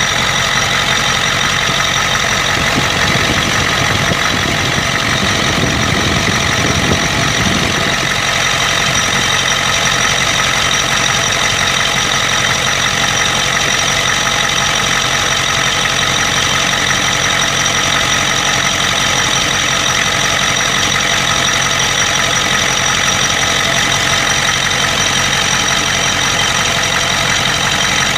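1992 Ford 7.3 IDI V8 diesel idling steadily with a knock like injector knock. It has a random misfire and blowby at idle, which a teardown traced to broken second piston rings on two pistons and a bad valve guide.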